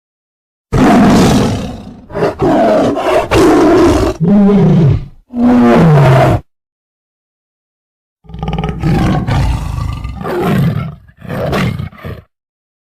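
Loud roars of a large wild animal, a sound effect for fear: a run of rough calls, the last two sliding down in pitch, then a pause of about two seconds and a second, quieter run of growling roars.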